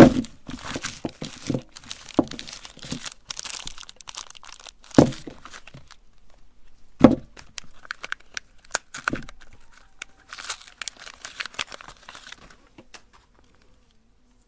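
Soap being crushed in a meat grinder: irregular crackling and crunching with louder knocks now and then, thinning out near the end.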